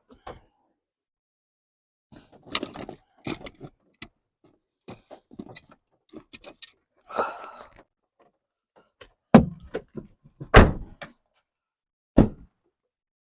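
Scattered clinks, rattles and knocks of metal tools and parts being handled, with three loud knocks in the last few seconds.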